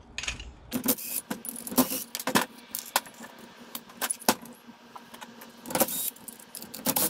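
Irregular metallic clinking and clattering of small carburetor parts and hand tools on a metal bench: nuts, washers and velocity stacks coming off a clone Weber IDF carburetor and being dropped into a steel parts tray.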